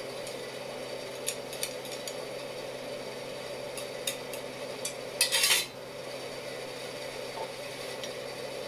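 Kitchen utensils clinking against dishes or pans: a few light clicks, then a short burst of louder clatter about five seconds in, over a steady hum.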